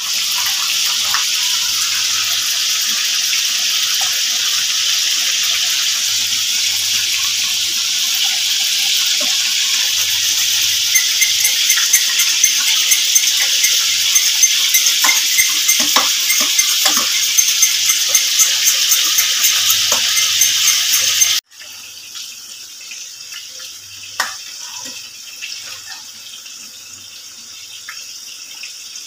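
Pot boiling hard on the stove, a loud steady hiss with small bubbling pops, cutting off abruptly about 21 seconds in. After that comes a quieter simmer with a few clinks of a metal spoon against a saucepan as gravy is stirred.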